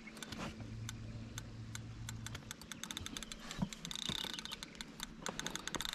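Fishing reel clicking in irregular rapid runs during the fight with a hooked carp, the clicks growing denser near the end.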